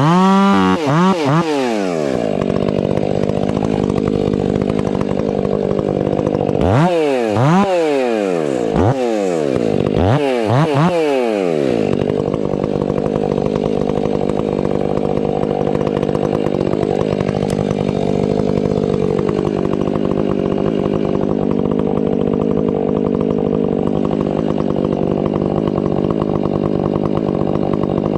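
Stihl 500i fuel-injected two-stroke chainsaw revving up and down in quick throttle blips, then held at full throttle in a long cut, its pitch sagging briefly under load partway through.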